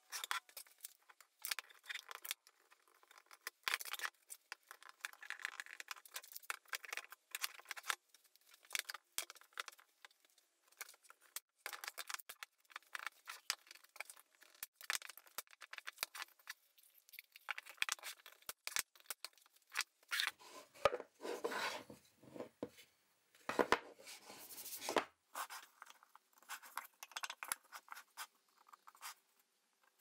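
Irregular clicks, rattles and scrapes of one-handed bar clamps and plywood pieces being handled on a wooden workbench. A denser stretch of rubbing and scraping comes about two-thirds of the way through.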